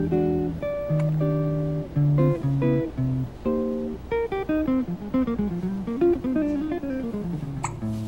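Background music: a guitar playing plucked notes, with a descending run of notes in the second half.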